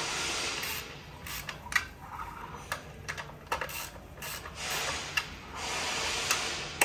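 Ratchet wrench clicking in short, irregular strokes as the 13mm bolts on a road sweeper's channel brush plate are given their final tightening. A hiss comes and goes in the background.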